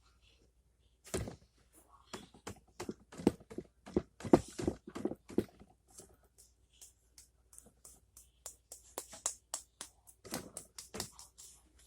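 A quick run of short, sharp percussive hits and clicks. They come densely for the first half, then thin out to scattered lighter, higher clicks.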